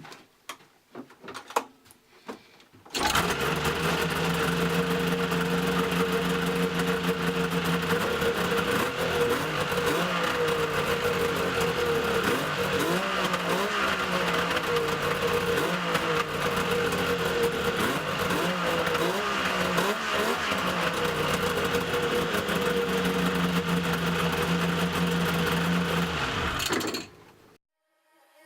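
Yamaha Mountain Max 700 snowmobile's three-cylinder two-stroke engine running through SLP triple pipes, coming in about three seconds in after a few faint clicks. It idles steadily, is blipped up and down repeatedly through the middle, settles back to idle, then cuts off suddenly near the end.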